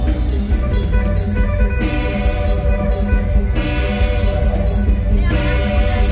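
Live mor lam band music: a steady drum beat under held chords that change about every two seconds.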